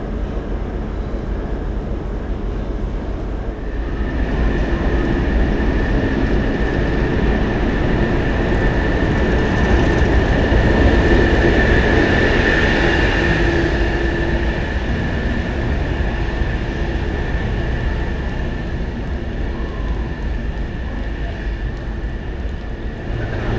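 British Rail Class 09 diesel shunter running, its English Electric six-cylinder engine giving a steady low rumble. A steady high whine joins about four seconds in, and the sound is loudest around the middle before easing off a little.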